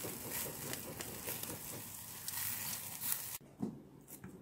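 Meat sizzling and crackling over hot charcoal on a small kettle grill as it is basted. About three and a half seconds in, the sizzle cuts off and a couple of light clicks of a knife and fork on a plate follow.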